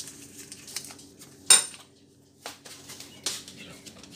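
Kitchen clatter of pans and utensils: one sharp metallic clink about a second and a half in, with a few lighter knocks around it.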